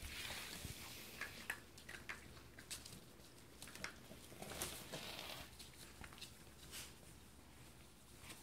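Pocket beagle puppies' paws pattering and clicking on a hardwood floor as they scamper about, faint, with scattered light taps and brief rustles.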